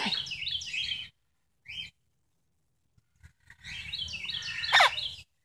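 Bird chirping: a run of rapid, repeated high chirps that stops about a second in, and another from about three and a half seconds in, ending in a loud falling whistle.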